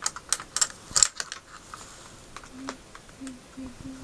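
Light, irregular clicks and taps, close together in the first second and sparser after, with a few brief low hums in the second half.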